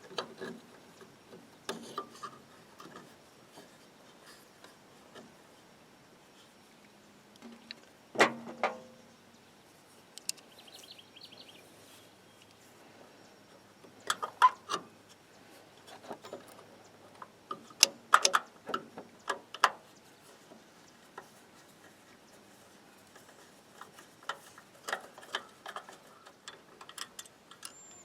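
Scattered clinks and knocks of metal parts being handled and test-fitted: a winch solenoid pack with its brackets and aluminium mounting plate. The sharpest knock comes about eight seconds in, with clusters of light clicks later, and a short fast run of light ticks around ten seconds in.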